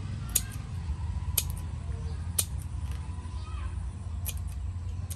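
Kitchen scissors snipping beetles: three sharp snips about a second apart, then a few smaller ones near the end, over a steady low rumble.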